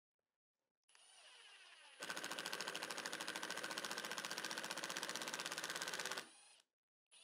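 Milwaukee cordless impact driver driving a pocket hole screw into oak. The motor whines up about a second in, then the hammer mechanism rattles rapidly for about four seconds before the motor winds down. The screw is stripping the wood and spinning in place.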